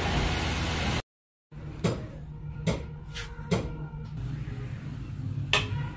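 An engine running loudly, cut off abruptly about a second in. After a brief silence, a few sharp metallic clicks and knocks of tools or engine parts being handled over a low hum.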